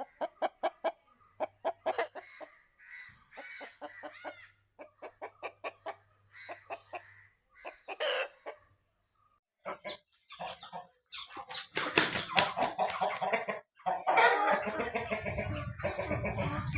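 Parrot-beak Aseel chickens clucking in short, rapid notes, with a louder, busier stretch of overlapping calls and noise in the second half.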